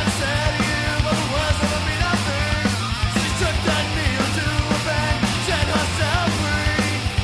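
Punk-style rock music with a steady drum beat, bass and guitars.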